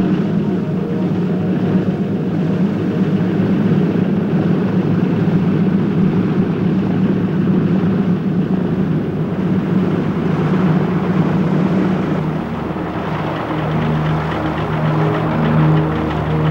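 Douglas DC-3 Dakota's twin radial piston engines running at low power as the aircraft taxis, a steady propeller drone with a deep rumble.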